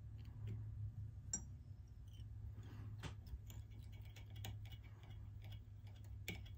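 Faint scattered clicks and ticks of a thread bobbin and tying tool being handled at a fly-tying vise while thread is wrapped at the fly's head, over a low steady hum. There is one sharper click about a second in, and the ticks come more often from about halfway through.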